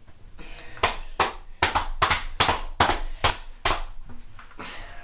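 A quick run of about ten sharp hand slaps or claps, around three a second, starting about a second in and stopping near the end.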